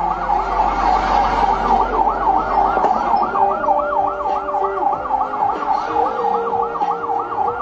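Police car siren in a fast yelp, sweeping up and down in pitch a little over four times a second.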